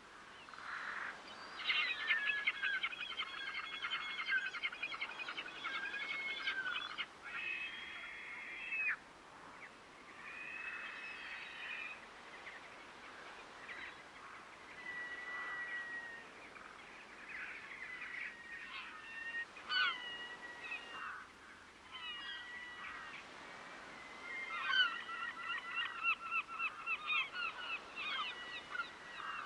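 Water birds calling: fast runs of harsh, repeated calls about two seconds in and again near the end, with separate single calls between them.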